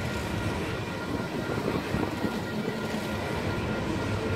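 Freight train of tank cars rolling past: steady noise of steel wheels running over the rails.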